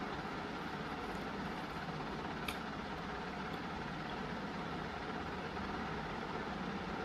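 Steady background hum and hiss with a single faint click about two and a half seconds in.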